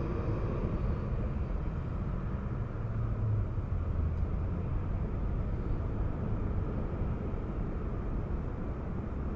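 Jet airliner engine noise at an airport: a steady low rumble that slowly fades, with a high whine dying away in the first second.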